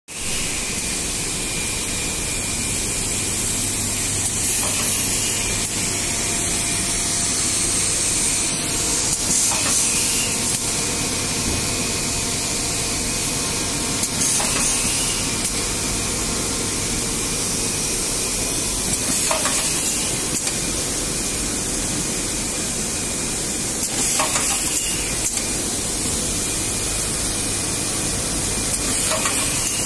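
Automatic eyelet machine with hot-air sealer and folder running: a steady hiss of air, with a short, louder burst of hiss about every five seconds as the machine cycles.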